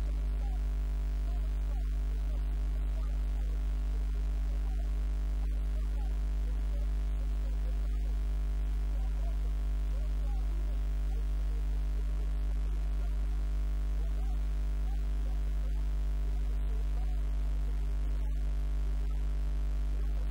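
Steady electrical mains hum, a deep drone with a buzz of higher overtones, unchanging throughout.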